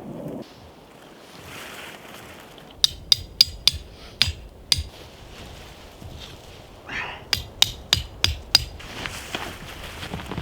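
Axe striking wood, likely chopping or splitting kindling: two quick series of sharp knocks, about three a second, with a few single strikes between.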